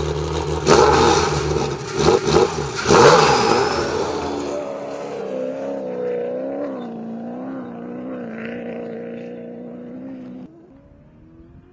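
Rally car engines revving hard, with sharp hits and rising and falling sweeps in the first four seconds. Then one engine runs on with a wavering pitch and cuts off suddenly about ten and a half seconds in, leaving a fainter engine.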